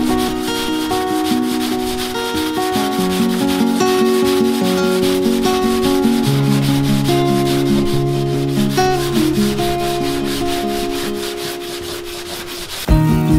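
A wooden hand sanding block rubbing back and forth over cured polyester filler on a fibreglass boat hull, smoothing the filled seam, in steady repeated strokes. Background music with changing notes plays throughout and grows louder near the end.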